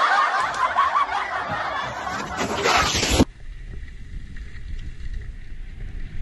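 Loud laughing mixed with wind noise that cuts off abruptly about three seconds in. Then a quieter steady rush of skis sliding over packed, scraped snow, with wind rumbling on the microphone.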